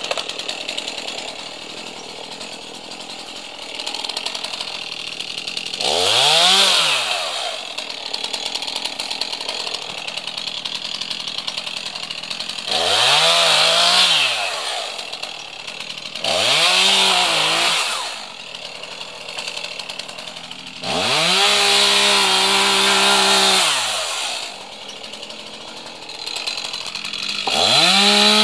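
Gas chainsaw idling and revved to full throttle five times as it cuts through brush, each rev rising and falling in pitch, the longest lasting about two and a half seconds.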